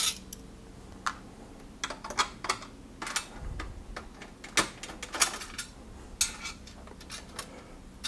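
Scattered light metallic clicks and clinks of a screwdriver working screws out of the sheet-metal rear cover of a Lenovo ThinkCentre M83z all-in-one PC.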